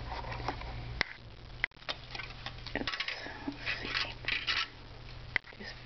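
Clothing being handled: a few sharp clicks, one about a second in, another shortly after and one near the end, with a stretch of rustling in the middle as a tank top is moved and shown.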